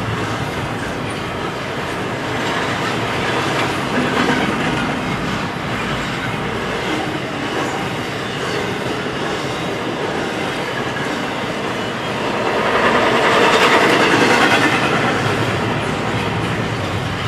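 Norfolk Southern double-stack intermodal freight train rolling past: a steady rumble of steel wheels on rail with the clickety-clack of wheels over the rail joints. It swells louder for a couple of seconds about three-quarters of the way through.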